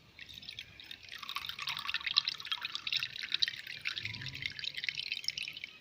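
Ginger and tulsi (holy basil) juice being strained, trickling and dripping through a strainer as a fast, irregular run of small drips that stops near the end.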